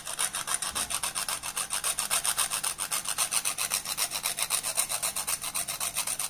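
Whole nutmeg rasped against a grater in quick, even back-and-forth strokes, several a second.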